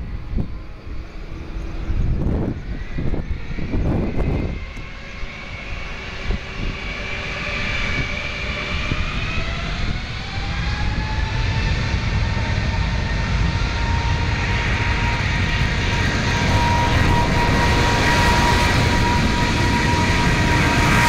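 Boeing 777-200's twin jet engines spooling up to takeoff thrust: a whine that rises in pitch over several seconds, then holds steady and high while the noise grows louder. Wind gusts on the microphone in the first few seconds.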